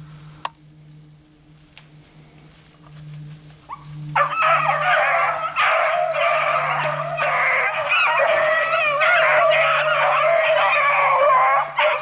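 A pack of beagles breaks into full cry about four seconds in, many hounds baying and bawling together without a break as they run a rabbit.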